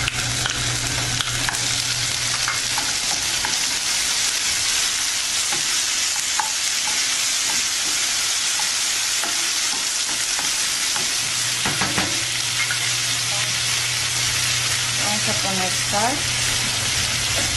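Diced tomato and chopped onion frying in hot oil in a nonstick frying pan, a steady sizzling hiss, while being stirred. A low steady hum fades out about three seconds in and returns after about eleven seconds.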